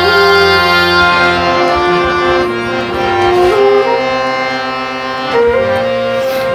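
Instrumental break between sung lines of a Nepali folk song: a reed-like melody instrument plays long held notes that step to new pitches about two seconds in and again near the end.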